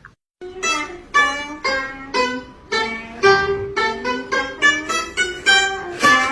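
Light music played on plucked strings, with short notes about two a second.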